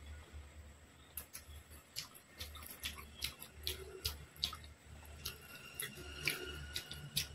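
Close-miked wet eating sounds: irregular sticky clicks of chewing and of fingers tearing curry-soaked poori, over a low steady hum.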